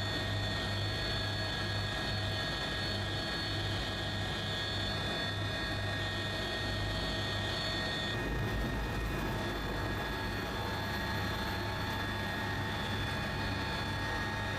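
Steady engine drone with a low hum and a constant high-pitched whine, which shifts slightly about halfway through.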